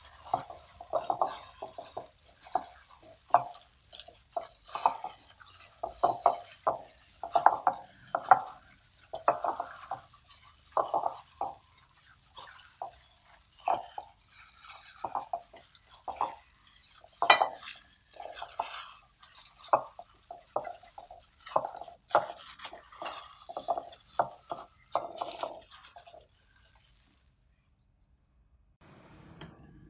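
Raw pork being mixed with chopped shallots and seasonings by a hand in a thin plastic glove in a ceramic bowl: irregular squelching and plastic rustling, with the odd light knock against the bowl. It stops about 27 seconds in.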